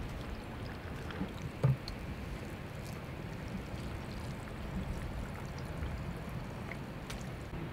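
Pickling liquid pouring from a plastic jug into glass jars of mixed vegetables, a steady trickle, with one short knock about a second and a half in.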